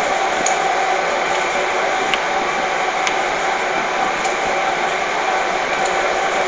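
Steady rush of an indoor shooting range's ventilation, with a few faint clicks as cartridges are handled and loaded at the bench.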